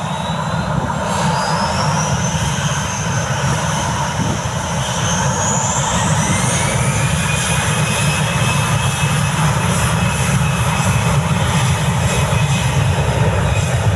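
Jet engines of an Airbus A320-214 airliner (CFM56-5B turbofans) running loudly as the aircraft rolls along the runway: a steady deep rumble under a high turbine whine that climbs in pitch over the first half and then holds.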